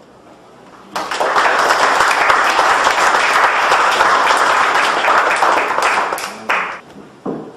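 Audience applauding: dense clapping starts suddenly about a second in, holds steady, and dies away after about five seconds.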